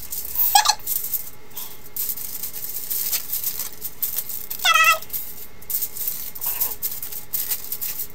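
Aluminium foil being torn and crinkled in fast-forwarded footage, a quick run of crackles and rustles. Two short, squeaky, high-pitched voice sounds come about half a second in and near the five-second mark.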